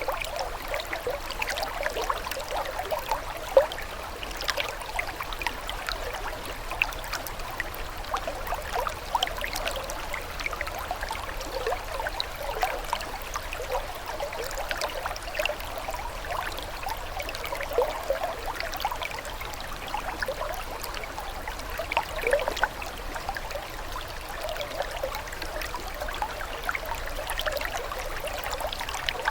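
Water running and trickling steadily over stones, a small stream with constant little splashes and gurgles, with one sharper splash about three and a half seconds in.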